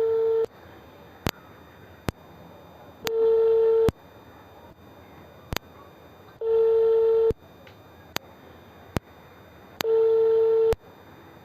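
Telephone ringback tone of an unanswered outgoing call: a single steady tone sounding for just under a second, repeating about every three and a half seconds, with faint clicks on the line between the rings.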